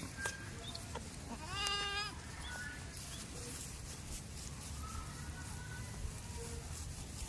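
A goat bleating once: a short wavering call about a second and a half in.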